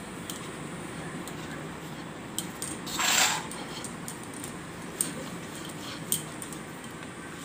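Wooden rolling pin and hands working dough on a floured wooden rolling board: a few light knocks of wood on wood spread through, and a short louder noise about three seconds in.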